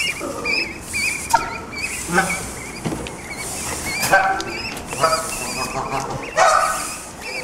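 Canada goose goslings peeping without a break, thin high wavering cheeps, with adult Canada geese giving about four short honks over them, the loudest near the end.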